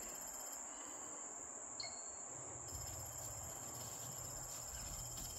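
Steady high-pitched chorus of insects in the woods, with a faint low rumble beneath and one brief chirp about two seconds in.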